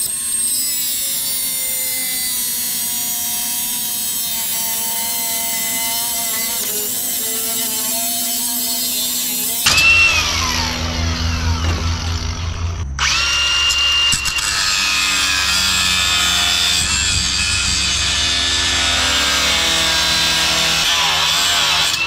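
Milwaukee cordless angle grinder running, grinding bolts off a steel miter-saw mount with a high whine that sags slightly as the disc bites. About ten seconds in it is switched off and winds down, then starts again a few seconds later and runs steadily.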